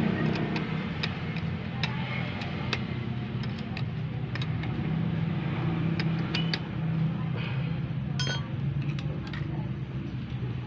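Light, irregular metallic clicks and taps of a socket driver working the bolts on a car starter motor's end cap during reassembly, with a brief clink about eight seconds in. Underneath runs a steady low hum.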